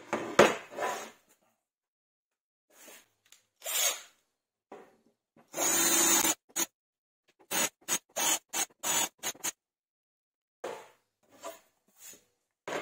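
Workshop hand-tool noises: a knock at the start, then short scraping or rasping strokes. A longer scrape comes about halfway through, followed by a run of about eight quick strokes.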